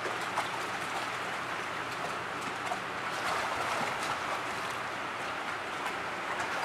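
Steady pattering and splashing of water, with faint scattered ticks.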